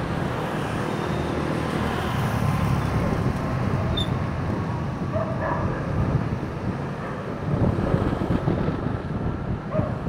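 Steady road traffic noise, with wind rumbling on the microphone of a camera mounted on a moving bicycle.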